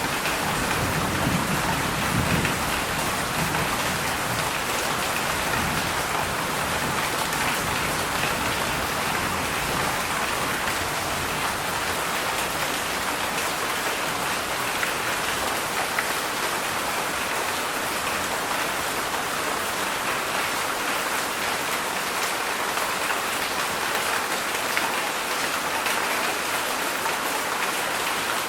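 Heavy rain falling steadily, a dense, even hiss of drops, with a low rumble under it in the first few seconds.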